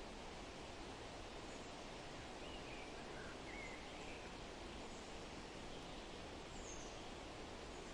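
Forest ambience: a steady, even hiss of rustling, with a few faint, brief bird chirps in the middle and one higher chirp near the end.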